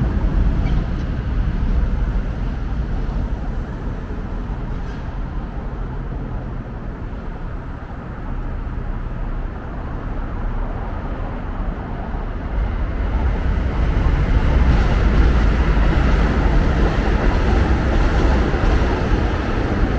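Steady rumble of street traffic, growing louder in the last third.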